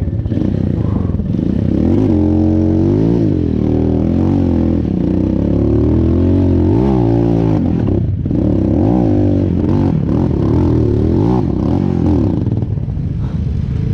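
Motorcycle engine running under way, its pitch rising and falling repeatedly as the throttle is opened and eased.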